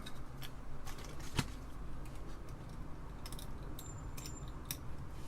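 A few scattered small clicks and taps of Apple II Plus keyboard parts being handled and fitted during reassembly, over a low steady hum.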